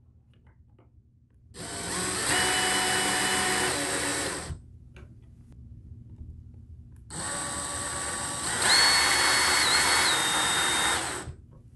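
Cordless drill-driver running twice, a few seconds each time with a steady whine, driving screws through a mounting plate into plastic wall anchors in a drywall ceiling. The second run steps up louder and higher in pitch partway through.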